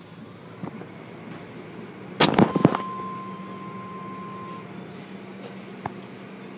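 Automatic car wash machinery running behind glass with a steady hum. A little over two seconds in there is a burst of loud bangs, followed by a thin steady whine for about two seconds.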